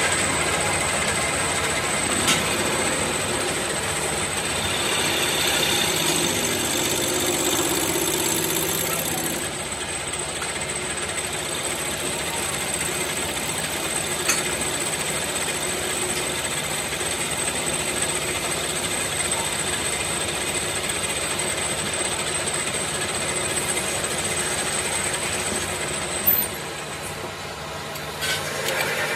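Metal lathe running steadily with a thin high whine, spinning a cast brake cylinder body clamped to its faceplate. Near the end a sharp click, and the running sound drops.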